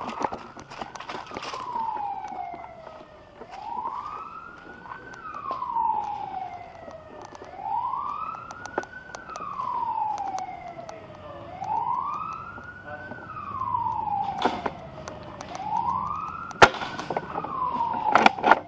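A siren wailing, its pitch rising quickly and falling slowly in a cycle of about four seconds, over and over. Scattered sharp clicks and snaps come through it, one louder than the rest near the end.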